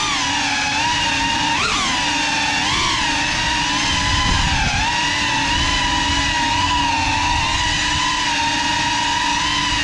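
Brushless motors and ducted propellers of a GEPRC Cinelog 35 cinewhoop FPV drone whining in flight, heard from the onboard camera. The pitch rises and dips briefly a few times in the first half with throttle changes, then holds steady.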